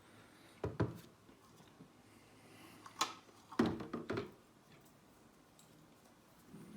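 A few sharp clicks and knocks of handled plastic: the body and parts of a Smartmi Air Humidifier 2, with a cluster of knocks a little past the middle.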